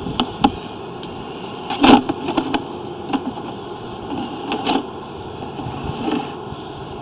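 Sewer inspection camera being pushed along a drain line: a steady hum with scattered knocks and clatters, the loudest about two seconds in.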